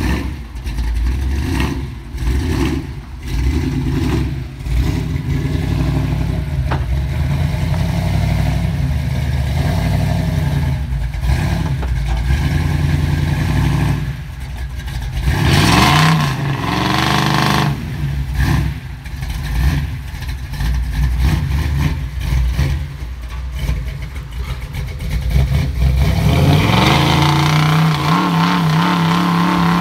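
468-cubic-inch stroker big-block V8 of a lifted six-wheel-drive pickup, running loud with a deep rumble and revved up and down as the truck crawls through brush. The revs climb and fall sharply about halfway through and rise again near the end.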